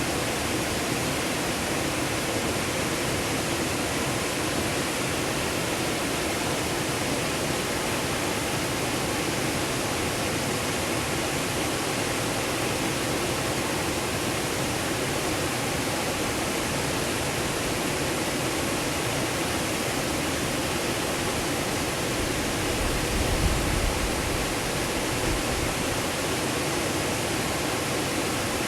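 Waterfall: water falling and splashing in a steady, unbroken rush. A brief low rumble stands out about three-quarters of the way through.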